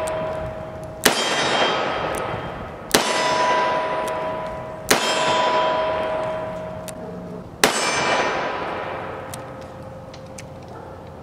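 Four shots from a Kimber K6s DCR 2-inch .357 Magnum revolver, two to three seconds apart. Each shot is followed by the ring of a struck steel target that fades slowly, and the ring's pitch changes from shot to shot as different plates are hit.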